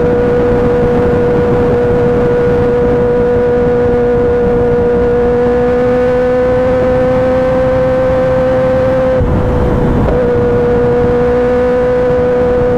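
Kawasaki ZX-10R inline-four engine running at steady high revs, its pitch creeping up slightly before a brief dip about nine seconds in, then holding steady again.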